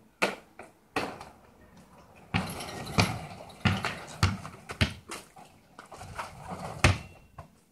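A basketball bouncing and striking the hoop: a run of irregular sharp thuds, the loudest about three seconds in and near the end.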